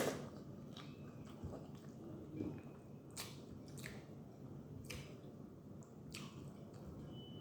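Faint close-up eating sounds: chewing and soft wet mouth noises from someone eating noodles, rice and egg, with a few light clicks scattered through.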